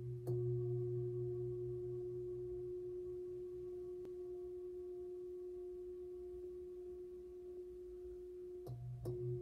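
Large metal singing bowl resting on a person's body for a sound massage, struck and left to ring: a steady ringing tone with a deeper hum beneath it that slowly fades. Near the end it is struck again and the ring swells back up.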